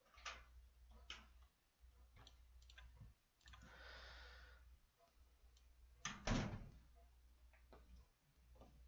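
Faint computer-mouse clicks over a low steady hum, near silence. There is a soft hiss like a breath about four seconds in, and a louder thump a little after six seconds.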